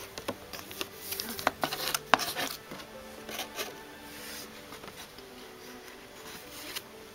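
Handling of a jumbo trading card against a cardboard box: a quick run of light taps and clicks in the first two to three seconds, the sharpest about two seconds in, then only faint scattered ticks.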